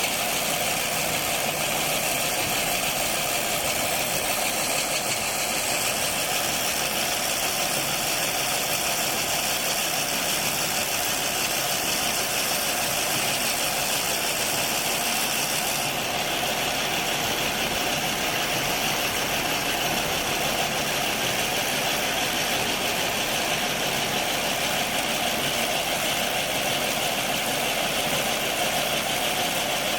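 Lavender harvesting machine running steadily with an even mechanical drone; its higher hiss shifts abruptly about halfway through.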